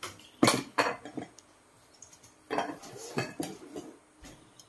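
Ceramic dinner plates and metal utensils clinking and clattering as plates are set down and stacked on a table and food is served. There are two groups of sharp clinks, one about half a second in and another around three seconds in.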